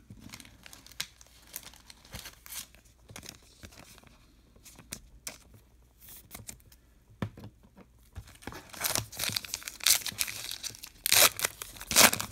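Trading cards being handled and flipped with faint scattered clicks, then from about eight seconds in a trading card pack wrapper being torn open and crinkled, the tearing loudest near the end.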